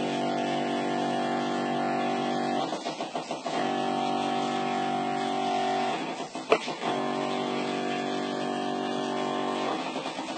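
Electric pump of a hand-held chicken injector running with a steady hum in three spells of about three seconds each, with short breaks between, as water is pumped into a raw chicken to swell it and add weight. A sharp click comes in the second break.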